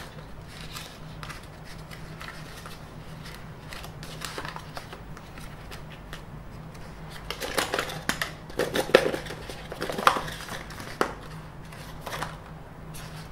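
White paperboard box insert being handled and pulled out of its box: rubbing, scraping and small knocks of card against card, busiest and loudest in the second half.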